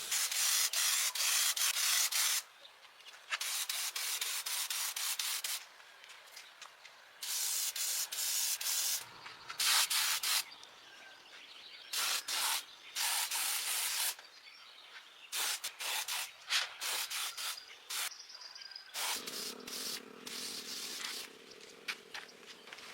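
Hand sanding: repeated spells of scratchy abrasive rubbing, each a second or two long, with short pauses between them.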